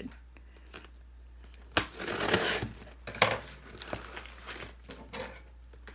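Packing tape being cut and torn open on a cardboard shipping box, with the cardboard flaps crinkling as they are pulled apart. There is a sharp snap just under two seconds in, followed by about half a second of ripping, and another snap about a second later.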